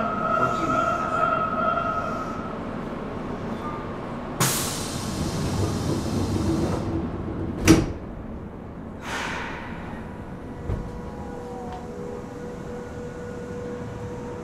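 Nagoya Municipal Subway 3000-series train's sliding doors closing at a station stop: a long hiss of air, then a sharp heavy thud as the doors shut, followed by a shorter hiss. A faint steady tone sets in near the end.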